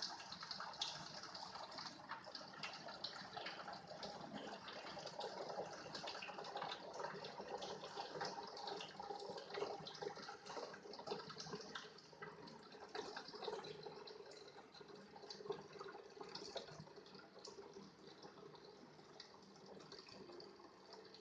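Water flowing from a Kangen LeveLuk water ionizer and splashing into a container, a steady trickling stream that eases off slightly toward the end.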